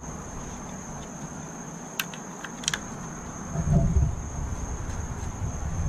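Steady high-pitched insect chirring, typical of crickets, with two sharp clicks about two seconds in and a brief low rumble near four seconds.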